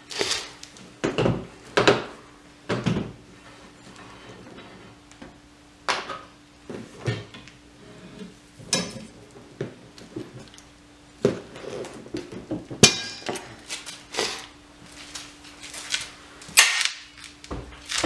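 Irregular clicks, knocks and short rattles of a wrench and metal parts, from loosening the wiper arm's 15 mm nut and working the arm off its spindle.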